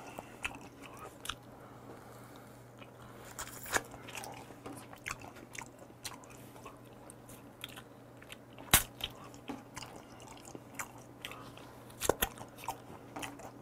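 Close-miked eating of raw shrimp: biting and chewing with wet mouth sounds and scattered small clicks. There is one sharp click about nine seconds in and a few more near the end.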